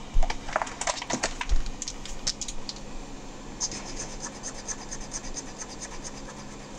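A few clicks in the first couple of seconds, then a Posca paint marker's tip scribbling back and forth on mixed-media paper, a fast scratchy stroke about five or six times a second, as a colour swatch is filled in.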